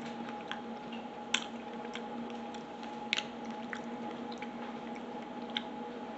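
Chewing and biting into a fried chicken sandwich: soft squishy mouth sounds with sharp wet clicks, a few louder than the rest, over a steady faint background hum.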